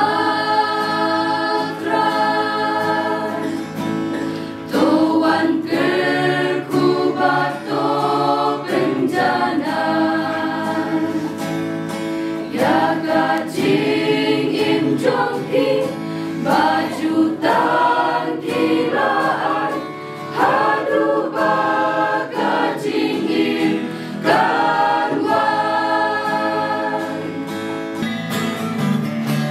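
Church choir singing a hymn, with long held notes.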